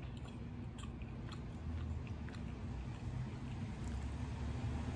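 A person chewing food close to the microphone, with small wet mouth clicks in the first couple of seconds. A low rumble grows louder toward the end.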